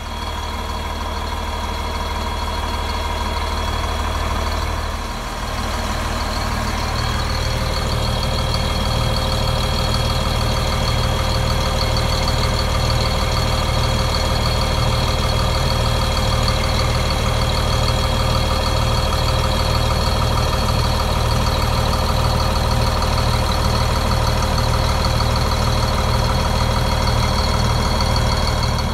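A four-wheel-drive vehicle's engine running steadily under way, with a low drone and a steady whine over it, and a brief dip in level about five seconds in.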